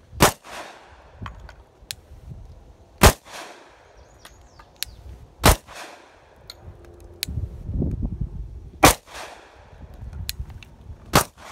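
Five slow, evenly spaced pistol shots from a Glock 29 firing 10mm rounds, about two and a half seconds apart, each a sharp crack with a short ring-out.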